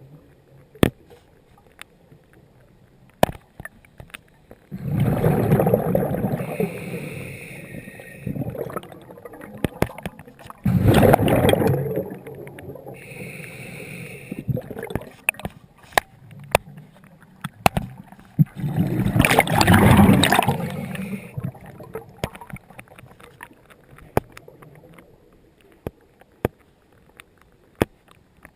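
Scuba diver breathing through a regulator underwater: three loud rushes of exhaled bubbles, about six to eight seconds apart, with a quieter hiss and scattered small clicks between.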